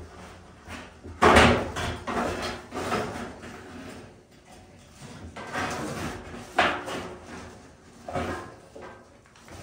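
Wire-mesh frame wrapped in plastic radiant tubing being forced down into a steel 55-gallon drum: the mesh scrapes and knocks against the drum in irregular bursts, loudest about a second in and again near six and a half seconds.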